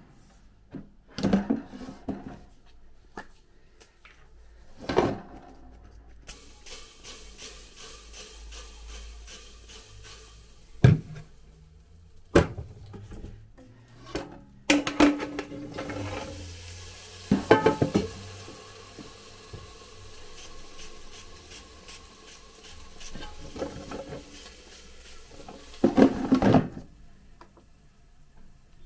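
Kitchen handling sounds around a Ninja air fryer: scattered knocks and clatters of the basket and utensils as homemade chips are readied for cooking, with a steady hiss through the middle that cuts off suddenly near the end.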